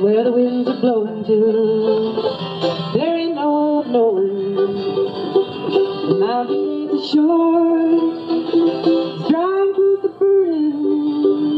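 Live acoustic country-folk music: an acoustic guitar and a mandolin play under a melody line of long held notes that slide between pitches.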